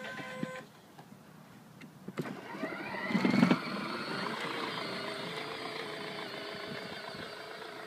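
Battery-powered ride-on toy car's electric motor whining up in pitch about two seconds in, then running steadily, with a loud knock as it gets going; a snatch of the toy's built-in music cuts off just before.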